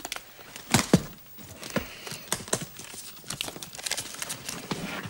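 Irregular knocks, clacks and rustling as objects are handled and packed into a case. The loudest knocks come about a second in.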